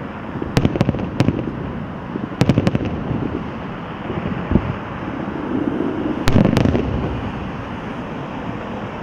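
Aerial fireworks bursting in quick clusters of sharp bangs, about a second in, around two and a half seconds in and a loud group at about six seconds, over a steady rumble of further distant explosions.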